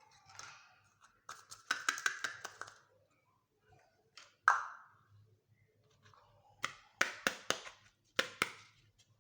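Small hard plastic toy kitchen pieces being handled: clusters of quick clicks and taps, with one sharper knock about halfway through and light rustling between.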